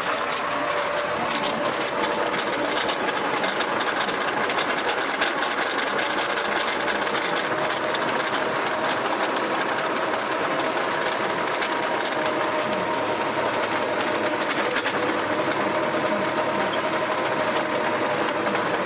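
Compact tractor's engine running steadily under load, with a rear-mounted rotary tiller churning through the soil.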